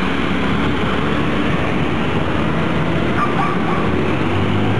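Street traffic on a rain-wet road: mototaxi and car engines running under a steady hiss of tyres and rain, with the engine hum strengthening near the end.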